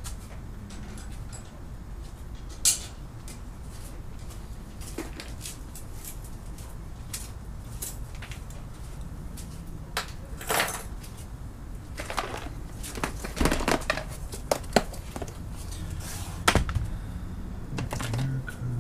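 Metal hand tools clinking and knocking as they are picked through and handled, likely while sorting out a hex key for an Allen-head screw. The sounds come as scattered clicks, with one sharp click about three seconds in and busier clattering in the second half, over a low steady hum.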